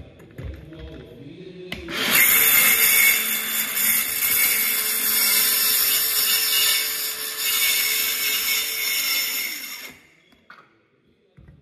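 DeWalt cordless compact circular saw cutting into a wooden floor. The saw starts abruptly about two seconds in, runs steadily through the cut for about eight seconds, and stops near the end, with a few light knocks of handling before it starts.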